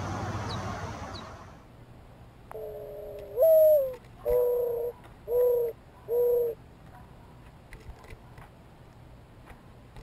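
Mourning dove cooing its song: one long note that slides up and then falls away, followed by three shorter, even coos, starting about two and a half seconds in. Before it, a steady hiss of background noise fades out in the first second and a half.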